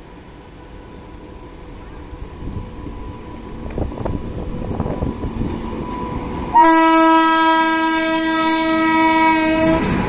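A WAP-7 electric locomotive approaching with the rumble of its wheels on the rails growing louder, then its horn sounds one long steady blast of about three seconds, starting about two-thirds of the way in and cutting off just before the end.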